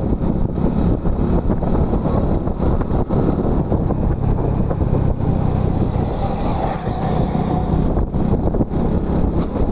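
Motorcycle running under way, a steady low rumble mixed with wind buffeting the microphone.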